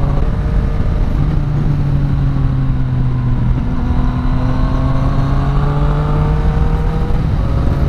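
Yamaha Tracer 900's three-cylinder engine through an Akrapovic exhaust, running under way with the revs dipping briefly about three and a half seconds in, then climbing slowly, over steady low wind and road rumble.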